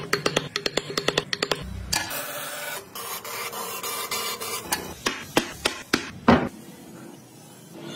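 A fast run of ticks from wood carving, then a thin-bladed reciprocating saw running through a wooden board for about three seconds, cutting out a carved wheel disc. A few sharp wooden knocks follow, the last the loudest, as the wooden toy wheels are handled on the bench.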